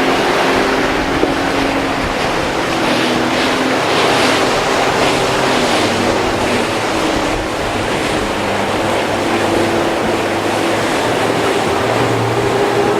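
Outboard motorboat engines running over loud rushing water and surf, their pitch rising and falling as the throttles change. Brief splashy hisses from hulls hitting the waves come a few seconds in.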